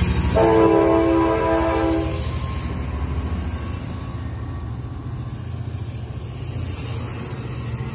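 F59PHI diesel locomotive sounding its multi-note chime horn once for about two seconds as it passes close, over its engine's low rumble. The horn cuts off and the bilevel passenger cars roll past with a steady, quieter rumble.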